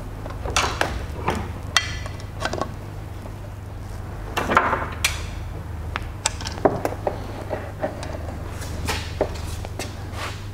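Irregular clicks and light metallic clinks of small parts and tools being handled at an outboard's gearcase as its oil plugs are fitted after filling with gear oil, one clink with a short ring. A steady low hum runs underneath.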